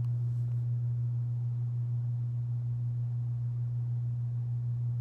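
A steady low hum: one unchanging low tone with nothing else heard over it.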